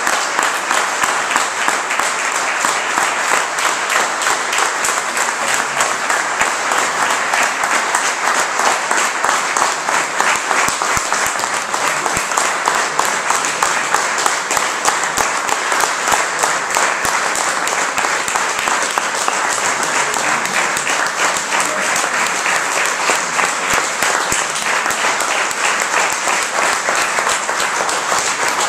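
Audience applauding steadily, a dense, unbroken clapping of many hands.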